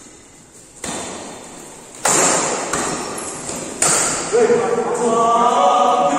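Badminton rackets striking a shuttlecock: three sharp cracks about a second and a half apart, each ringing on in a large hall. From about four seconds in, men's voices call out.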